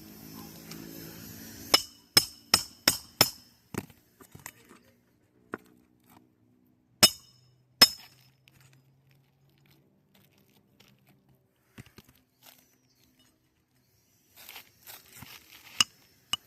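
Hammer strikes on metal, each with a short ringing clink: a quick run of five at about three a second, two more spaced strikes a few seconds later, then a string of lighter and louder taps near the end.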